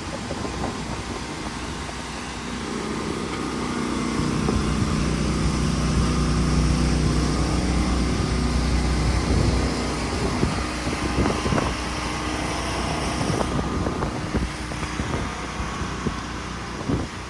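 A motor vehicle's engine passing, its low hum swelling a few seconds in and fading after about ten seconds, over steady street noise. A few brief knocks come near the end.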